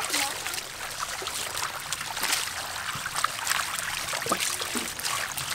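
Water from a garden hose running into a large metal basin full of water, with frequent small splashes as bunches of leafy greens are swished and rinsed in it.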